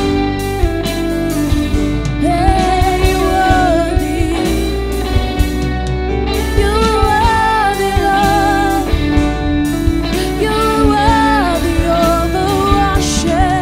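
Live gospel worship band playing: electric guitars, bass, drum kit and keyboard, with a voice singing a slow, wavering melody over it.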